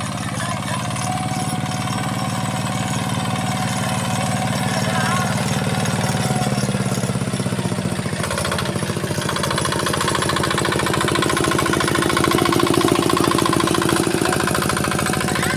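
Single-cylinder diesel engine of a Kubota two-wheel hand tractor (kuliglig) running steadily with a fast, even chugging beat as it pulls across tilled soil.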